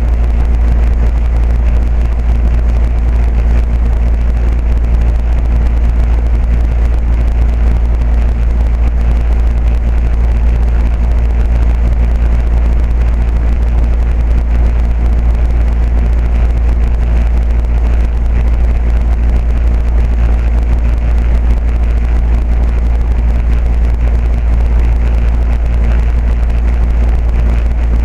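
2008 Carrier 2.5-ton air-conditioner condensing unit running steadily, its Copeland scroll compressor and three-bladed condenser fan giving a loud, even low hum with several steady tones above it and a rush of fan air.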